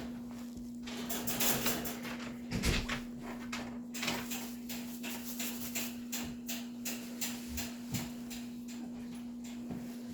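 Irregular rustling and crackling of polyester fiberfill stuffing and bead-filled pantyhose bags being pushed and packed by hand into a doll's cloth body, over a steady low hum.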